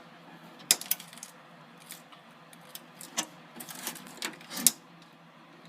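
Scattered sharp clicks and light metallic taps: a pair about a second in, then a quicker cluster near the end.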